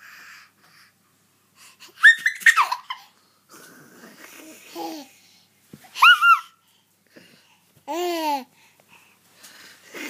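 An eleven-month-old baby laughing and babbling, with two short, very high-pitched squeals about two and six seconds in and a longer, lower call near the eight-second mark.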